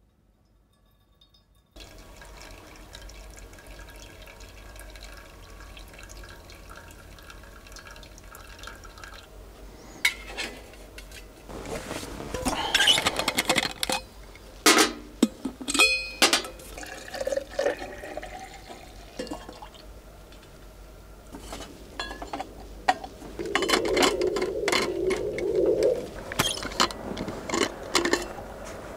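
Liquid being poured and trickling, with several sharp clinks along the way.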